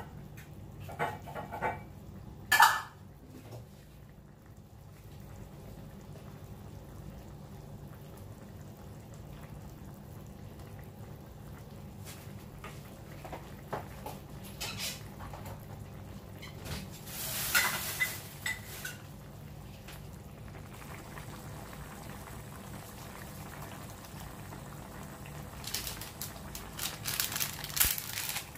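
Pork pieces simmering in liquid in a steel wok, a steady faint bubbling. Short clicks and rustles come near the start, around the middle as ground pepper goes in, and near the end as bay leaves are dropped in.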